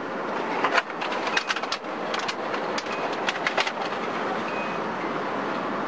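Outdoor background noise with a steady hiss, with several irregular sharp clicks and taps in the first three and a half seconds and a couple of faint short chirps.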